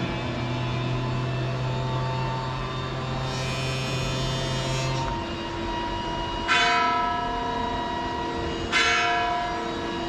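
Large cathedral bell tolling the 11 o'clock strokes from close by. Two heavy strikes come about two seconds apart in the second half, each leaving a long ringing hum.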